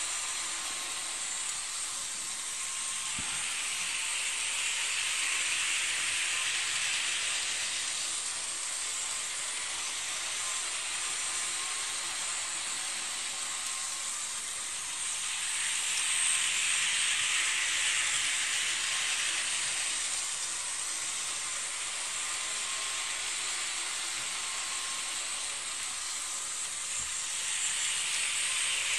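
Model railway train running around a loop of track: a steady high hissing run of small wheels and electric motor that swells three times, about every twelve seconds, as the train passes close.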